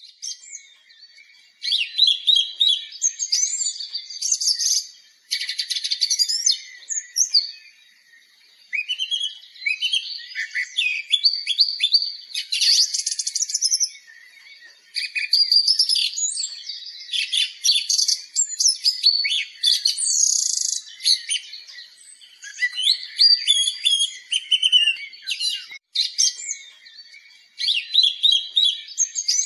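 Birds singing: varied chirps, trills and whistles in phrases a second or few long, with short pauses between them.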